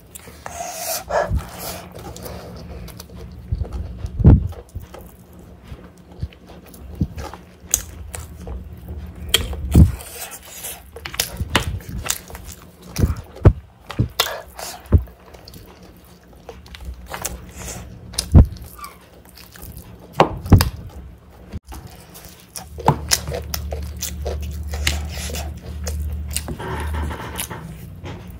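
Close-up eating sounds of a person eating biryani by hand: chewing and wet mouth clicks at irregular moments, with fingers scraping rice across the plate.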